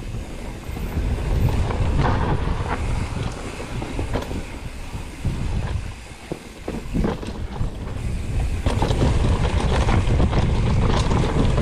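Mountain bike riding fast down a rough dirt trail: wind buffeting the microphone and the bike rattling, with scattered knocks from bumps. It eases off briefly around the middle and then picks up again.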